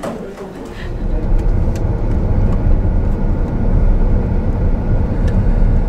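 Car on the move: a steady low rumble of engine and road noise, with a few faint clicks.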